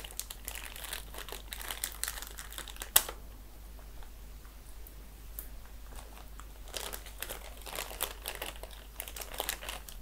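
Plastic anti-static bag crinkling and crumpling in hands as it is unwrapped, with a sharp click about three seconds in, a quieter stretch after it, then more crinkling near the end.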